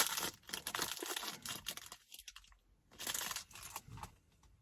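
Plastic packaging crinkling and rustling as it is handled and pulled open, in two bursts with a short pause between.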